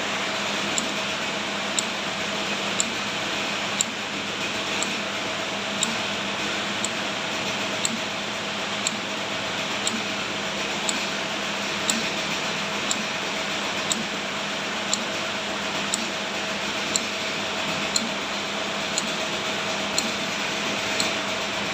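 Lanting snack forming machine running: a steady motor hum with a sharp, regular click about once a second.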